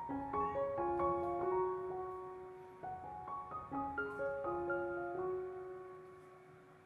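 Background music: a light keyboard melody of single held notes, piano-like in tone, dying away near the end.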